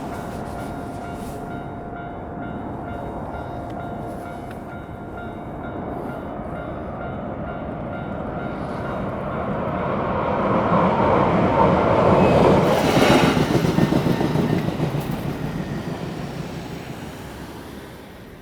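Hankyu train passing over a level crossing, growing louder to a peak about two-thirds of the way through and then fading away, with a rhythmic clatter of wheels over rail joints as it goes.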